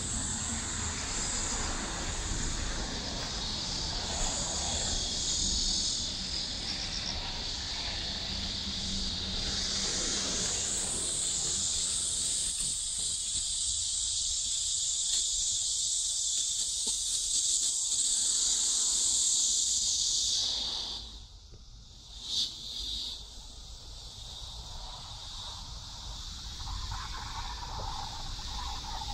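Cicadas buzzing in a steady, high-pitched summer chorus that cuts off abruptly about twenty seconds in, with a low rumble underneath and a short click shortly after the chorus stops.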